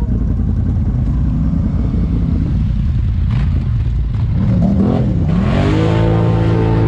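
ATV engine running under loud, rough riding noise; a little past halfway it revs up and down, then climbs and holds a steady pitch near the end.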